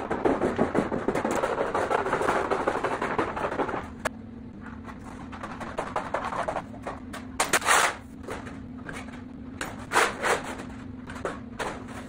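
Sheet metal being cut with hand snips: a dense crunching run of quick cuts for the first few seconds, then a handful of separate snips and metal clatters over a faint steady low hum.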